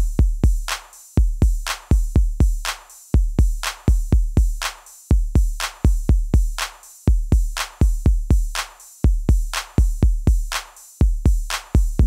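Background music: an electronic drum-machine beat of heavy kick drums and sharp hits, looping a pattern about every two seconds.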